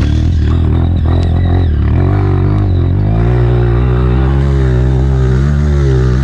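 Single-cylinder four-stroke Honda CRF trail bike engine running under load as it is ridden, pitch rising about halfway through and then rising and falling with the throttle.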